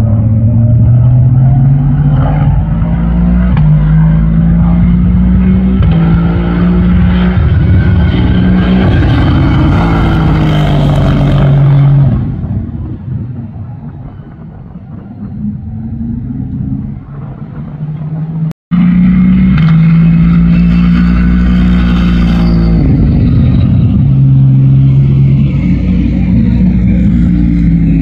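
Aston Martin Vantage racing car's twin-turbo 4.0-litre V8 accelerating hard, its note climbing and dropping back through a series of quick upshifts, then fading as the car draws away. After an abrupt cut, the engine is loud again, accelerating through more upshifts.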